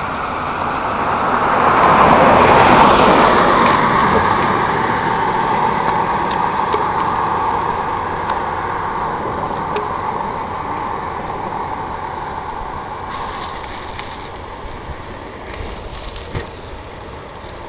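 A motor vehicle going by on the road, its noise swelling to a peak about two to three seconds in and then slowly dying away.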